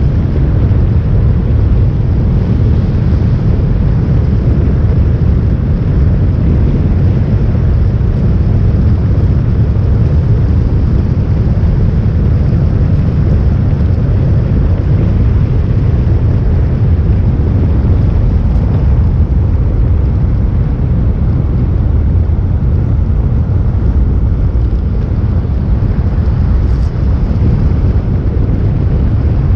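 Motorcycle on the move: loud, steady wind rush on the microphone over the low drone of the engine and road.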